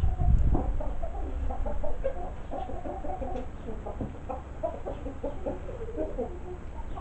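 Chickens clucking, a steady run of short calls. A low rumble of wind on the microphone in the first half-second.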